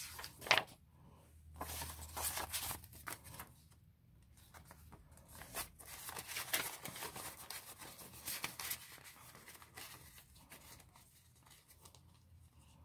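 Paper banknotes and a clear plastic binder pouch rustling and crinkling in irregular bursts as bills are slid into the pouch and the pouch is pressed flat.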